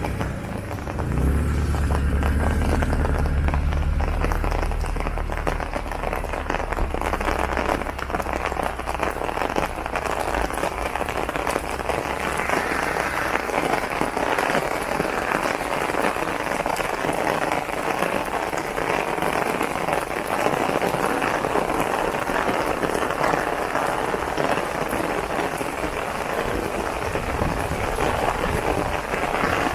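Rain falling steadily on an umbrella overhead, a dense patter of drops. A low rumble sits under it from about a second in until roughly ten seconds in.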